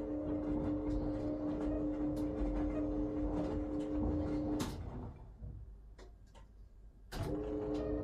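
Wyss Mirella Universal 2000 front-loading washing machine on its wash action: the drum motor hums steadily while the laundry tumbles, stops a little over four and a half seconds in, and after a quieter pause of about two and a half seconds with a few clicks starts up again, as the drum reverses direction.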